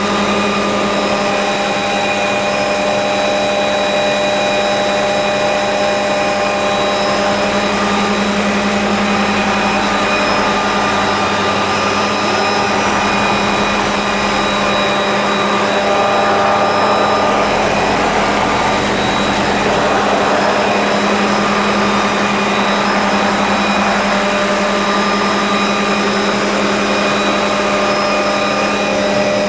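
Helicopter in steady flight, heard from on board: a constant drone with a strong low hum and several steady higher tones over an even rushing noise.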